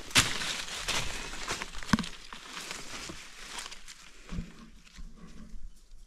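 Footsteps crunching through dry leaf litter and undergrowth, with twigs snapping and leaves rustling; the crackling is loudest in the first couple of seconds and thins out after.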